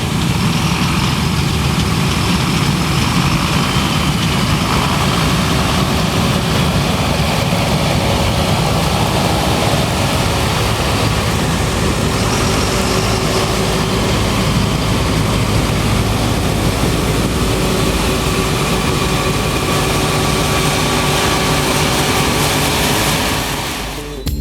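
Heavy diesel harvest machinery running steadily: a continuous loud engine rumble that dips down near the end.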